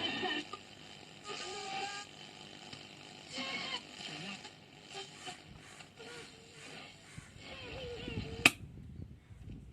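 A 1956 Philips BCA435U valve radio receiving shortwave: short snatches of broadcast sound come and go, with gliding tuning whistles between them. A single sharp click about eight and a half seconds in is the loudest sound.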